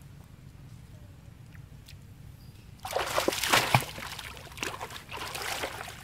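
Water splashing hard as two long-tailed macaques thrash together at the surface, starting suddenly about three seconds in, with a second, lighter bout of splashing near the end as one climbs out onto the edge.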